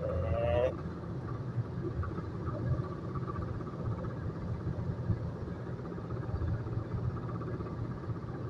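Cabin noise of a Skoda Octavia A5 1.8 with a manual gearbox on the move: a steady low rumble of engine and road, with a faint steady tone above it and a brief rising whine in the first second. The car has a knock that comes up while driving.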